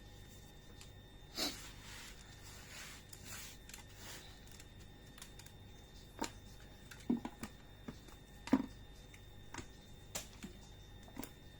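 Hands handling a plucked bird: scattered light clicks and taps, with a brief rustle about a second and a half in.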